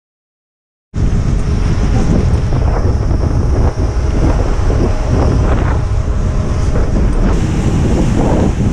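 Wind buffeting a camera microphone: a loud, dense rumble that starts suddenly about a second in.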